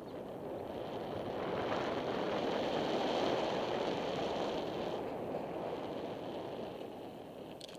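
Wind rushing over a helmet camera's microphone while riding fast down a paved street, a steady roar with hiss that swells to its loudest about three seconds in and then eases off. A couple of sharp clicks right at the end.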